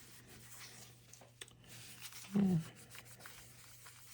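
Faint rubbing of a microfiber rag polishing a metal Zippo lighter case with Brasso, with small ticks. About halfway through, a short low hum-like sound falling in pitch is the loudest thing.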